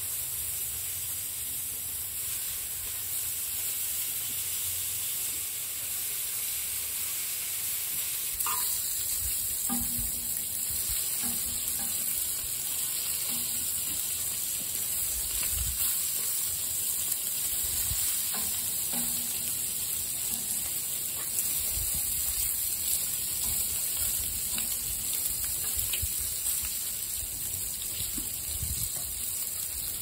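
Bacon sizzling on a smoker's steel flat-top griddle: a steady high frying hiss, with scattered light clicks and knocks as tongs work the strips against the metal.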